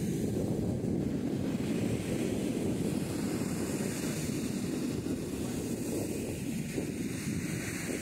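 Wind buffeting the microphone: a steady, fluttering low rumble.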